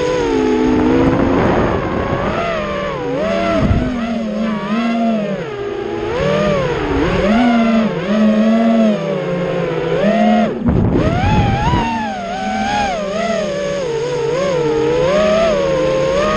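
FPV racing quadcopter's brushless motors whining, the pitch constantly rising and falling with the throttle, over the rush of air from the propellers. About ten and a half seconds in, the whine briefly drops away, then comes back with a burst of rushing noise.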